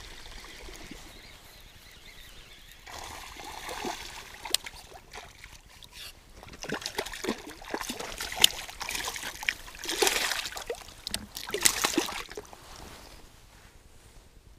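A hooked perch splashing and thrashing at the water's surface as it is reeled in to the bank on a baitcasting reel, with a dense run of splashes about six to twelve seconds in.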